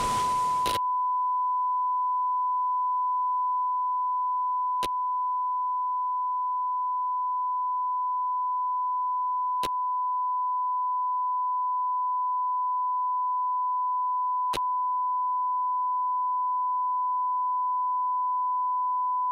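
Steady single-pitch broadcast test tone of the kind that runs under color bars, the signal of a station off the air with technical difficulties. Wind noise stops just under a second in, and faint clicks come about every five seconds.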